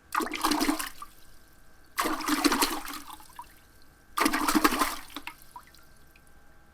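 Water splashing in three sudden surges, each lasting about a second and fading away, about two seconds apart.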